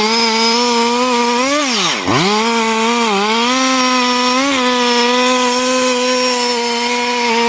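Two-stroke chainsaw running at full throttle, likely cutting into wood. About two seconds in the throttle is let off briefly and the engine revs back up, then it holds a high, steady pitch with small sags.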